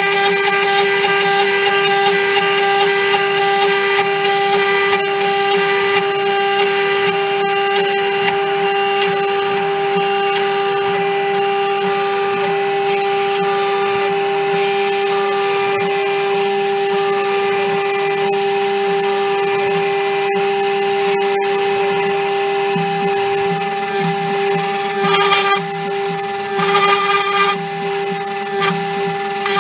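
CNC router spindle running with a steady high whine while a small end mill carves a stamp design into a blue plastic block. The cutting noise rises and falls along the toolpath, with a few louder bursts of cutting near the end.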